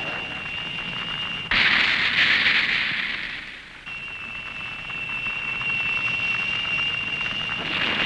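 Electronic science-fiction ray-gun sound effect: a steady high whine, broken about a second and a half in by a sudden loud hissing blast that fades over about two seconds before the whine comes back.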